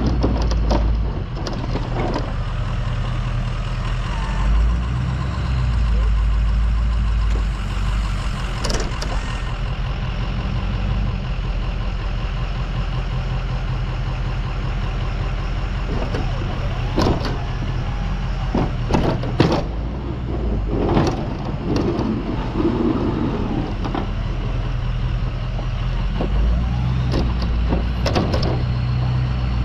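Ford F-250's 6.0 L Power Stroke diesel V8 running steadily while the truck pushes snow with a stainless Boss V-plow, with sharp clacks and knocks now and then.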